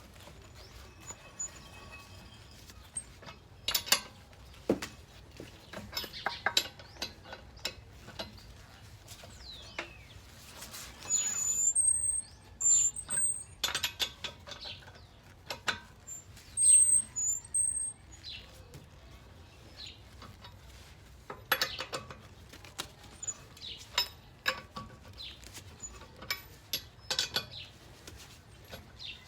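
Scattered metallic clicks and clinks of lug nuts being threaded and tightened onto a car wheel with hand tools, with birds chirping briefly twice around the middle.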